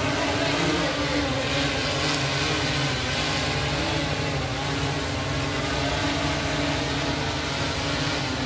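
Large multirotor spraying drone hovering overhead, its propellers giving a steady hum made of several held tones that waver slightly in pitch.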